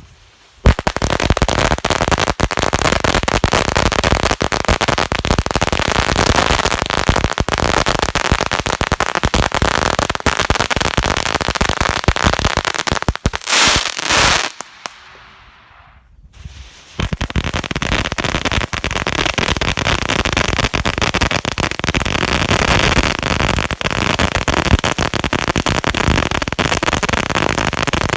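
A 1000-shot firecracker strip going off in a dense, rapid string of bangs for about fourteen seconds. After a pause of about two seconds, the crackling mines it leads into fire, a long, dense run of crackling.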